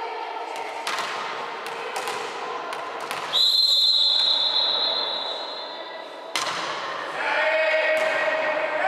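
Volleyball bounced several times on a gym floor, then a referee's whistle blows one long, steady, high note of about three seconds to signal the serve. A sharp hit follows as the ball is served, and players' voices rise near the end.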